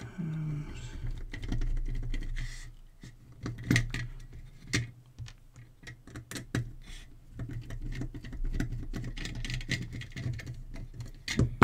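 A hand screwdriver unscrewing small screws from the plastic-cased circuit board of an LED work light: a run of small clicks and scratchy scrapes as the tip turns in the screw heads, with light taps as the parts are handled.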